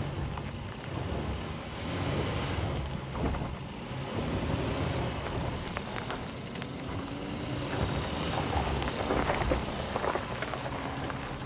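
2020 Honda Ridgeline's 3.5-litre V6 running at low speed as the truck drives slowly over a rutted gravel track, drawing closer and passing close by near the end. Wind buffets the microphone throughout, and tyres crackle over stones between about eight and ten seconds in.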